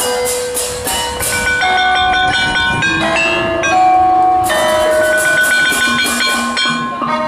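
Marching drum band playing: a melody of held notes over a steady beat of snare, tenor and bass drums.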